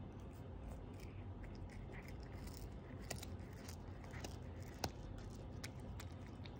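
Siamese cat chewing a capelin, crunching it with irregular sharp clicks, the loudest about five seconds in.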